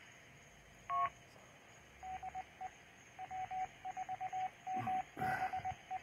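Ham radio repeater's two-note courtesy beep about a second in, then from about two seconds its station identification keyed in Morse code: a string of short and longer beeps at a single pitch. Heard faintly through a computer playing back the recording.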